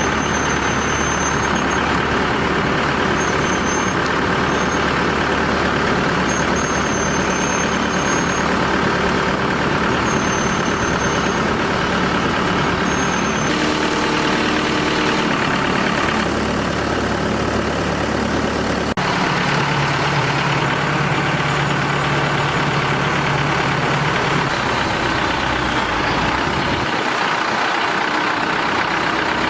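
Hydraulic drilling rig's engine running steadily under the operator's control, its sound shifting about 13 and 19 seconds in as the load changes.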